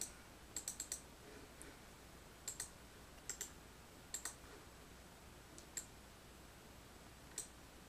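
Computer mouse buttons clicking, a dozen or so faint sharp clicks, several in quick pairs like double-clicks, with pauses of a second or more between groups.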